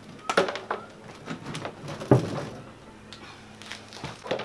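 A few separate knocks and clunks, the loudest about two seconds in, over a faint steady hum.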